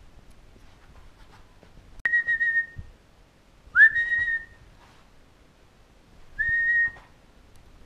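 A person whistles three short notes, each at the same high pitch, about two seconds apart. The middle note is the loudest and slides up into the pitch.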